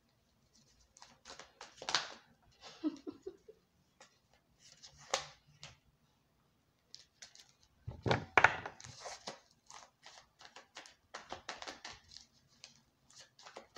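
A deck of tarot cards being shuffled and handled by hand: quick papery riffles, flicks and rustles in short spurts, with a louder slap of cards against the table about eight seconds in.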